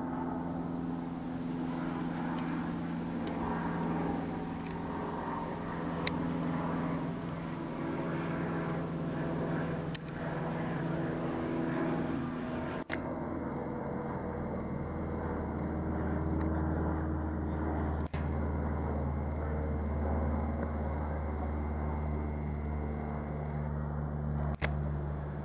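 Cessna 152 light aircraft droning overhead, the propeller and four-cylinder engine note shifting in pitch and growing stronger in the low end in the second half. A few sharp clicks, the loudest about ten seconds in.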